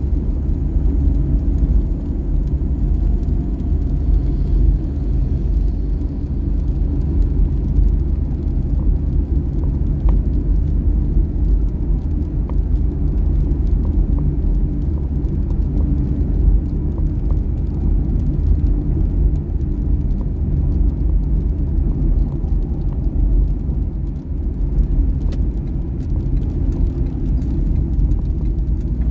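Steady low rumble of a Wuling Confero's engine and tyres on a wet road, heard inside the cabin while driving.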